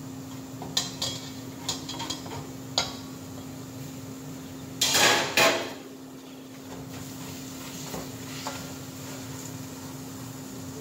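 Several light metallic clinks and knocks of a spatula against a stainless steel pot and its steel lid, then a louder double clatter about five seconds in as the steel lid is set down. A steady low hum runs underneath.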